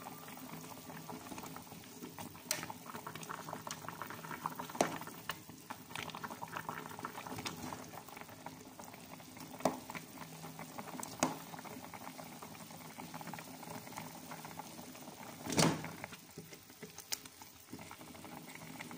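Chicken and its sauce boiling in an aluminium pot over high heat, a steady bubbling and crackle. A few sharp clicks cut through it, the loudest about three-quarters of the way through.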